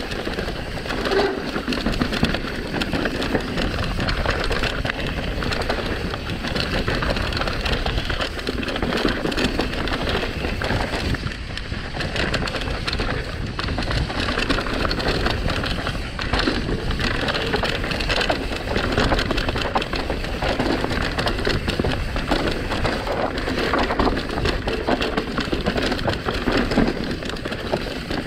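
Mountain bike descending a rough dirt trail at speed: tyres crunching and crackling over dirt and gravel, with the bike rattling and clattering over the bumps.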